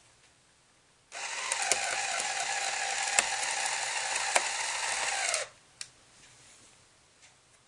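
Lego Power Functions electric motor whirring through plastic gears for about four seconds, driving the entrance door, with a steady whine over gear chatter. It starts about a second in and winds down with a falling pitch as it stops.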